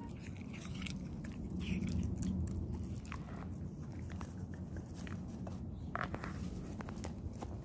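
Cocker spaniel chewing and eating pieces of fruit from a small ceramic ramekin, with irregular sharp clicks of mouth and teeth as it eats.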